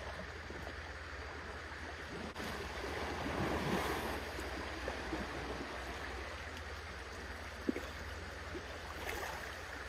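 River water sloshing and splashing around two Asian elephants as they move and bathe in it, swelling about three to four seconds in, with one short knock near the end.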